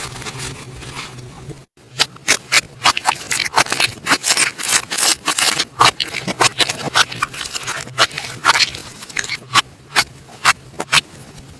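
Slime being pressed and worked by hand, giving quick irregular crackling clicks and pops, several a second. A brief break about two seconds in, after which the pops come thicker and louder.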